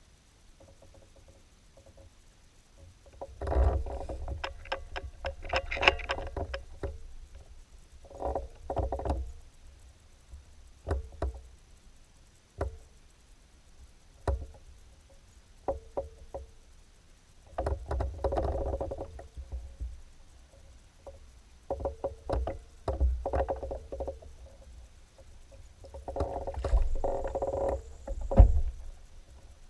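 Irregular bursts of knocking, clicking and rubbing from gear being handled aboard a kayak, with single sharp clicks between the bursts.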